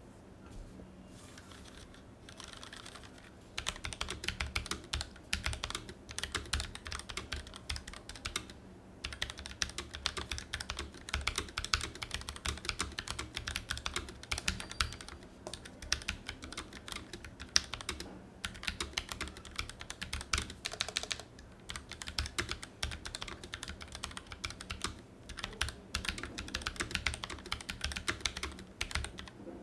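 Typing on a Tecware Phantom L low-profile mechanical keyboard with Outemu low-profile linear red switches: a fast, continuous run of keystroke clicks that starts a few seconds in and pauses briefly about nine seconds in. The sound is muffled rather than hollow, which the reviewer puts down to the sound-dampening foam inside the case.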